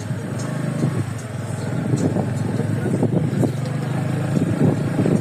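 A motor vehicle running steadily, a low engine hum with scattered clicks and knocks.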